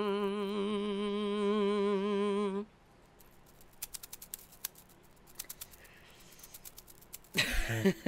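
A long vocal 'wooo' note that slides up and then holds with a wavering vibrato for about two and a half seconds, then soft scattered clicks and rattles of a small plastic slinky being handled; a laugh breaks in near the end.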